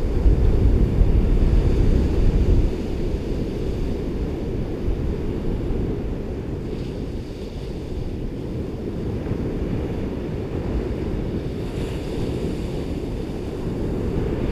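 Ocean surf washing onto a beach, mixed with wind rumbling on the microphone, loudest in the first few seconds and then steady.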